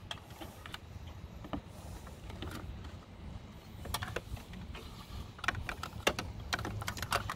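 Gloved hands threading a thin wire through the end of a snowmobile exhaust spring: scattered light metallic clicks and scrapes, thicker in the last few seconds, over a low steady hum.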